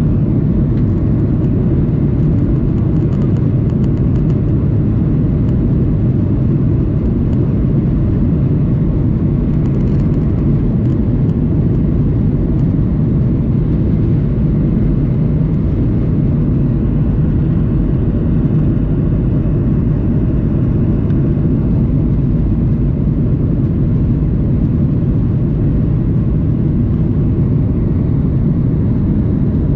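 Steady low rumble of a Boeing 737-800's CFM56 engines heard inside the cabin from a window seat, even and unbroken throughout.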